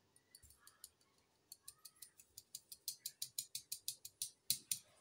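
Metal mesh flour sieve being tapped to shake flour through: a quick, even run of light ticks, about four a second, starting about a second and a half in and growing louder.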